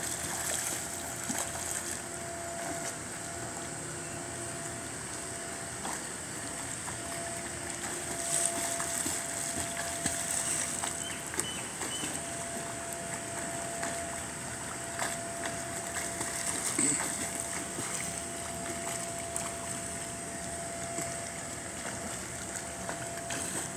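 Pool water splashing and sloshing as a person swims through it, in an uneven wash with small irregular splashes, over a faint steady hum.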